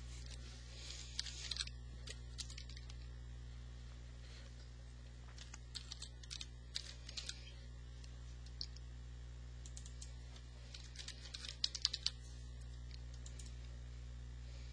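Computer keyboard typing in three short bursts of key clicks, the last the loudest, over a steady low hum.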